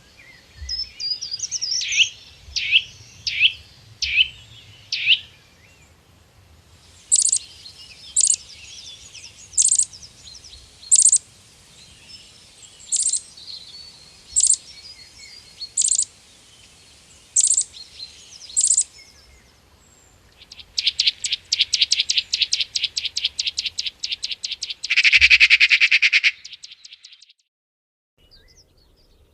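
Birds calling in three different passages. First comes a quick run of about five sweeping chirps, then about nine sharp single notes roughly a second and a half apart, then a fast rattling trill that ends in a brief louder burst, with a moment of silence after it.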